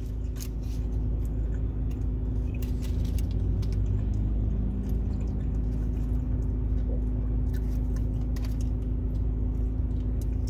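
Steady low rumble of a parked car's engine running, heard from inside the cabin, with light crinkles and rustles of a paper fast-food wrapper and bag being handled.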